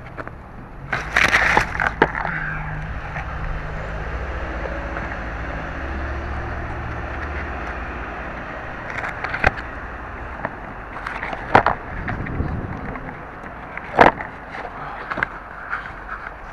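Small electric RC helicopter running with a low, slightly wavering motor and rotor hum, broken by several sharp knocks and clatters.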